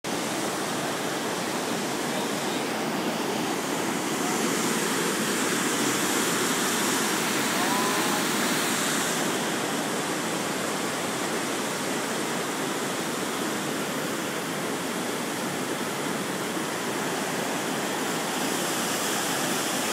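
Floodwater in a swollen creek rushing under a bridge: a steady, unbroken roar of fast-moving water.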